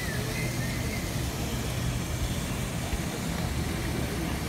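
Steady low background hum, with a few faint high chirps within the first second.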